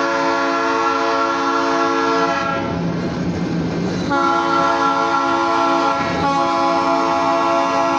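Oil Creek & Titusville freight locomotive's air horn blowing long blasts for a grade crossing: one blast ending a couple of seconds in, then after a short pause a second blast that breaks off briefly and sounds again, over the rumble of the approaching train.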